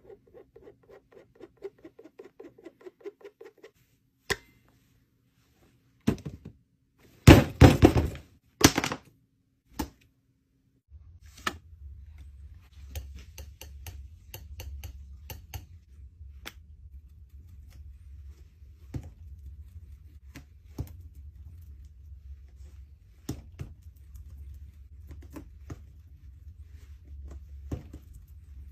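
Palette knife mixing and tapping thick paint on a palette: scattered light clicks and scrapes over a low steady hum. A few seconds in comes a quick cluster of loud knocks, the loudest sounds here.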